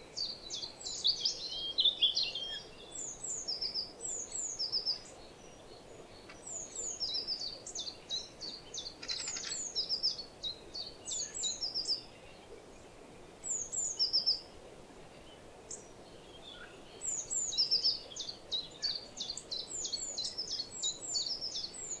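Small songbirds chirping in a spruce forest: bursts of high, thin, quick falling notes, several groups of them with short pauses in between, over a faint steady background.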